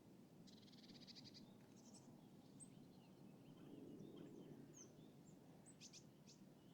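Faint lakeside city ambience: a steady low distant rumble under small birds chirping, with a short rapid trill about half a second in and a few quick high chirps near the end.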